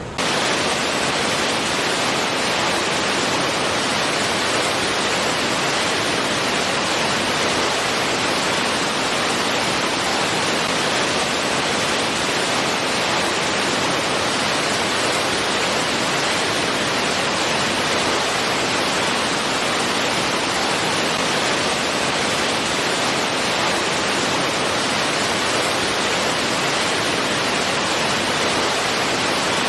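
Fast-flowing stream with a strong current, water rushing steadily over rocks.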